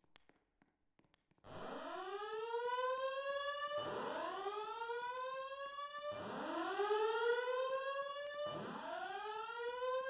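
Fire alarm voice-evacuation system sounding its whoop tone: a series of rising sweeps, each about two seconds long, repeating back to back four times. It starts about a second and a half in.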